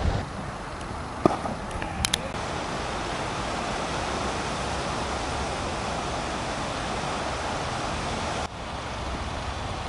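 Steady hiss and rumble of wind on the microphone, with a few sharp clicks about one and two seconds in.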